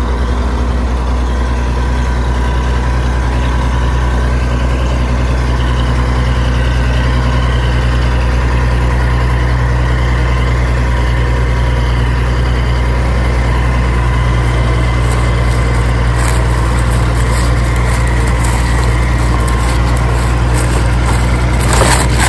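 Heavy diesel tractor engine idling steadily at an unchanging pitch. Light crackling clicks join in over the last several seconds and grow stronger at the very end.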